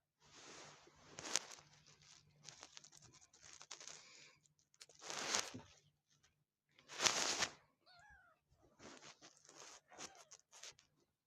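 A kitten sneezing three times, several seconds apart, the last sneeze the loudest, with softer breathy noises in between. A brief faint mew follows the last sneeze.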